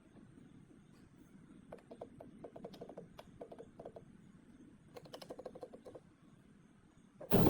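Runs of quick, light mechanical clicks, like a ratchet or small metal parts being worked by hand. Just before the end, a loud, hissing power-tool noise starts suddenly.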